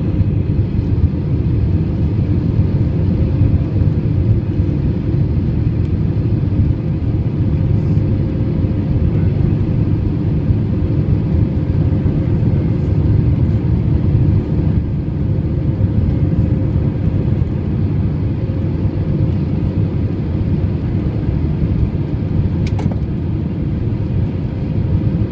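Steady low rumble of an Airbus A320's jet engines and airflow heard inside the passenger cabin during the climb after takeoff, with a faint steady hum running through it.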